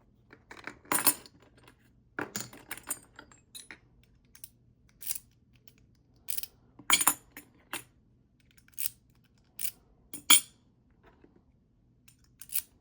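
Metal dimple keys clinking and clicking against each other and against a small lock, in a string of sharp, irregular clinks as the keys are handled and tried one after another.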